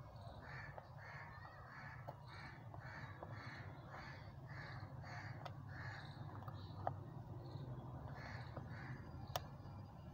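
A crow cawing in a quick series of about three caws a second, stopping for a couple of seconds before two more caws near the end. A few sharp clicks of steel scissors snipping into a plastic bottle.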